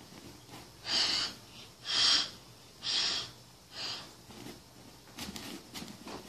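A child's breath: four loud, breathy puffs about a second apart, rescue breaths blown during pretend CPR.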